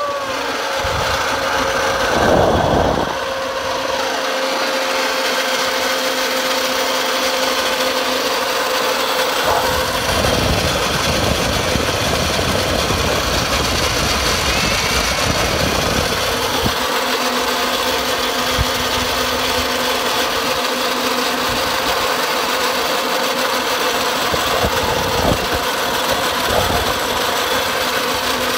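Zipline trolley pulleys rolling along the steel cable: a steady, even whirring hum with faint held tones in it.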